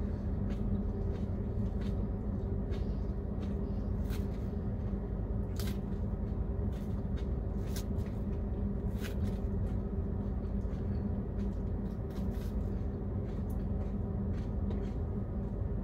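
A man eating salad from a plastic clamshell container: scattered light clicks and scrapes of a fork against the plastic, with chewing, over a steady low hum in a truck cab.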